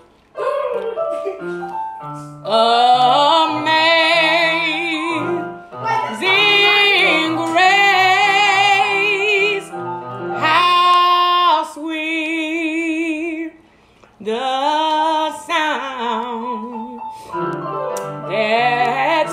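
Electronic keyboard playing held chords and stepping bass notes while a female voice sings long notes with wide vibrato, in phrases broken by short pauses.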